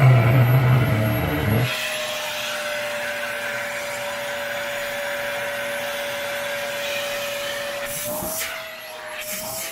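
Vacuum cleaner running with a steady whine and hiss while it sucks at a sock, with a loud low rumble over the first second and a half. After about eight seconds the sound drops a little and the whine rises slightly in pitch.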